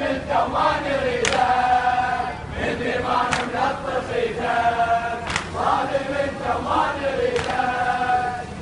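Crowd of men chanting in unison in a Muharram procession, the phrase repeating about every two seconds with each line held on a long note. A sharp beat lands at the start of each phrase.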